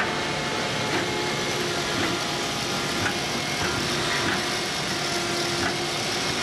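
CNC tube bending machine running: a steady mechanical hum with a faint held tone and occasional light clicks.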